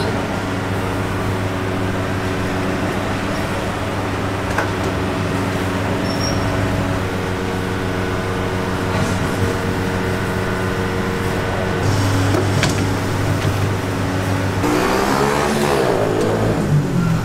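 A steady low motor hum, with road traffic outside; a vehicle passes near the end, its pitch sweeping as it goes by.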